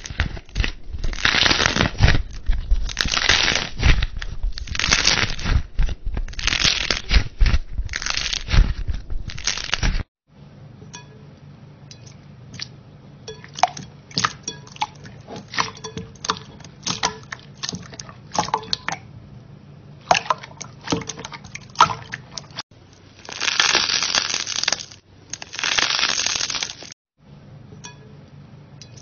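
Smiley-face stress balls with a crunchy filling crackling in loud bursts as hands squeeze and tear them apart, for about the first ten seconds. Then clear slime being pressed and poked by fingers: quieter sticky clicks and small pops, with two louder crackling stretches near the end.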